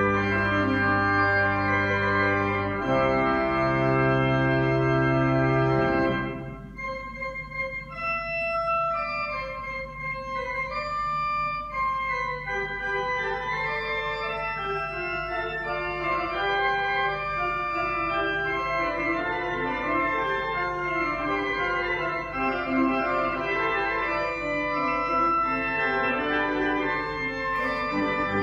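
Willis pipe organ playing: loud held chords over deep bass notes, then about six seconds in the bass drops out and a softer passage of moving lines follows, slowly growing fuller.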